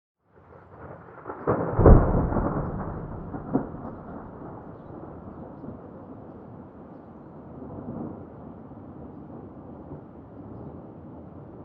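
Recorded thunder fades in from silence. About two seconds in comes a loud crack that rolls into a long, slowly fading rumble. A second sharp crack follows a second and a half later, and a smaller rumble swells near the end, over a steady low background of storm noise.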